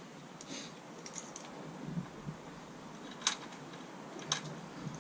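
Faint scattered handling noises, then two sharp short clicks about a second apart near the end, from working the motorcycle's key and controls.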